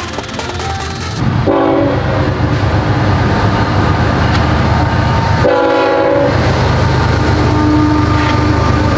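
CSX freight train with several diesel locomotives passing close by, with a heavy, steady rumble of engines and wheels. The locomotive air horn sounds twice, once about a second and a half in and again, more briefly, near the middle. Background music cuts off about a second in.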